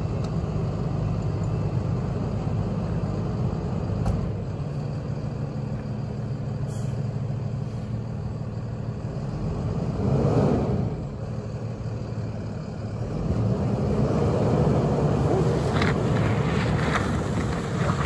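Tow truck's engine running steadily at low speed as it pulls a minivan behind it. The engine swells louder about ten seconds in and again for the last few seconds.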